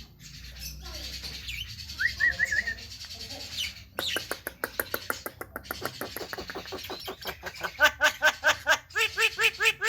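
Javan myna chattering: a few short warbled whistles, then from about four seconds in a fast run of clicks that turns into rapid repeated harsh notes, about five a second, toward the end.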